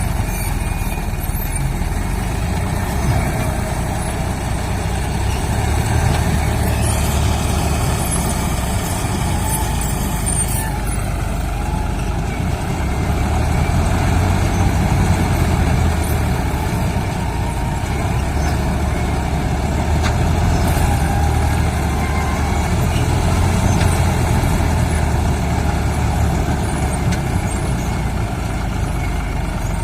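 Heavy diesel farm machinery engine running steadily under load, a deep continuous rumble, with a brief brighter, harsher stretch about a quarter of the way in.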